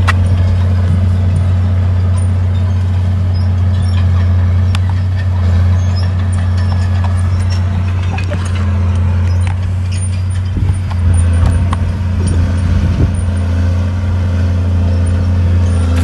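Heavy diesel engine of earth-moving machinery running steadily with a deep drone, with scattered light clanks. The engine note wavers for a couple of seconds past the middle.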